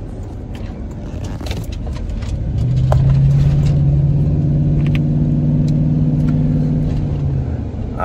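A car horn sounds in one long steady blast of about five seconds, starting a couple of seconds in, heard from inside a moving pickup's cabin over its engine and road noise.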